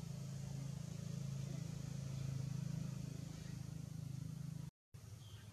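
A steady low mechanical hum, like a motor running, that cuts out briefly near the end and returns fainter.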